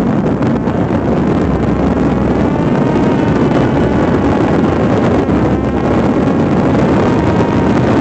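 Strong wind buffeting the microphone: a loud, steady rushing with a faint, wavering whine above it.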